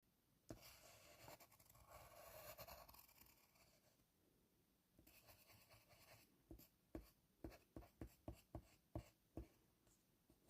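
Faint scratching and rubbing in a small room, then a run of about ten sharp taps, roughly three a second, in the second half.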